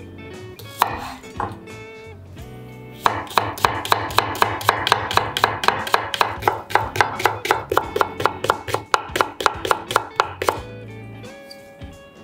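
Chef's knife slicing a Japanese long green onion into thin rounds on a bamboo cutting board: two single cuts about a second in, then a fast, even run of chopping strokes, about four or five a second, that stops a little before the end.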